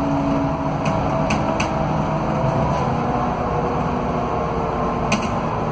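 Scania DC09 five-cylinder diesel of a K320UA articulated bus running with the bus under way, heard from inside the passenger cabin, with a steady whine from the hub-reduction rear axle. A few sharp rattling clicks come from the interior fittings.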